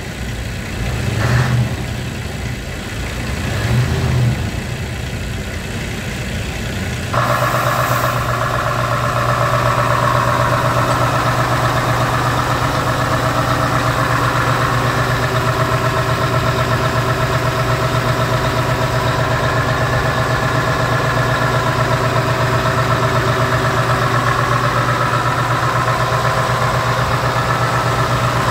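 Scania R truck's V8 diesel engine revved in two short blips in the first few seconds. About seven seconds in it switches to a steady idle heard close up at the open front service hatch.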